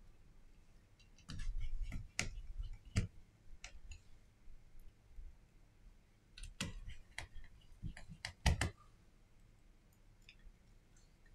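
Scattered small clicks and taps of a precision screwdriver and small parts against an opened smartphone's internal frame, coming in two clusters with a low bump just over a second in.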